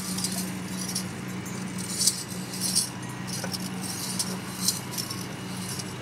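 Small metal bells jingling in short, irregular bursts over a steady low hum.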